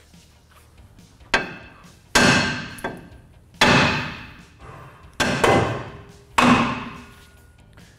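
A hammer striking the aluminum steering knuckle of a 2008 Dodge Ram 1500, five blows about a second or more apart, each ringing out briefly. The blows are meant to break the upper ball joint's stud loose from the knuckle.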